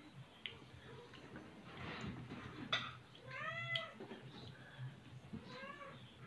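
A cat meowing twice, each call rising then falling in pitch. The first, about three and a half seconds in, is the louder one, and a sharp click comes just before it.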